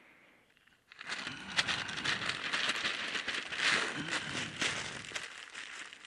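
Dry twigs and leaves crackling and rustling close to the microphone, a dense run of small snaps that starts about a second in and dies away near the end.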